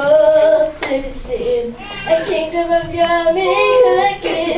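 A girl singing solo, in phrases of long held notes with short breaths between them.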